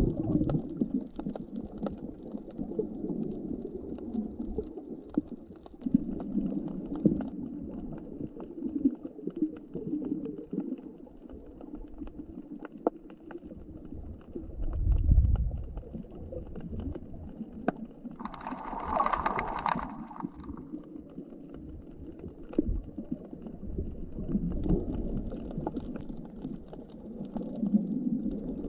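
Underwater sound in shallow sea water: a muffled, rumbling wash of moving water with scattered sharp clicks throughout. There is a deep thump about fifteen seconds in and a brief hiss a few seconds later.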